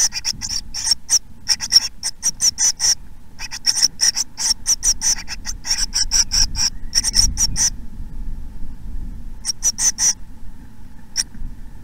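Nestling tits begging in a nest box: rapid runs of thin, high cheeps, several a second, in bouts with a pause about eight seconds in, over a low rustle.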